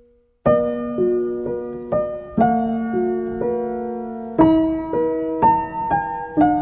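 Background piano music: gentle single notes and chords struck about twice a second, starting about half a second in after a brief silence.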